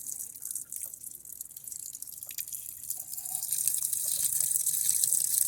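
Water running into the tub of a Whirlpool Xpert washing machine as it fills, a steady hiss that grows louder about four seconds in.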